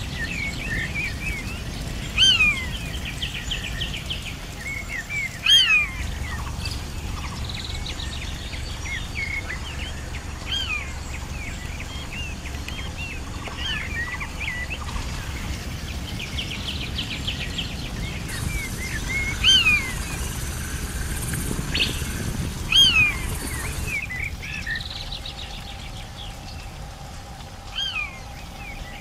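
Forest ambience of wild birds chirping and calling, many short rising-and-falling calls repeating, a few louder ones standing out, over a low steady rumble.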